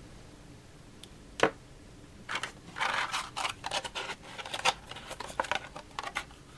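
Clear plastic clamshell packaging being handled and pried apart as a battery pack is pulled out of it: one sharp click about a second and a half in, then an irregular run of plastic crackles, clicks and rustles.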